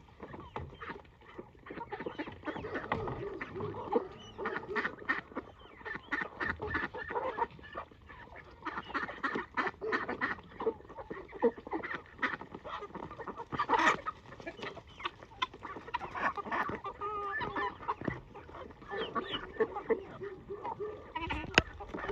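A flock of farmyard poultry calling, with many short calls overlapping one another and a louder cluster about two-thirds of the way through.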